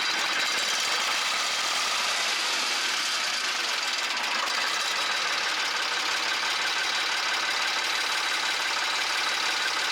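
Carraro 6000's air-cooled diesel engine running steadily with a diesel clatter, on its first run after an oil pump rebuild.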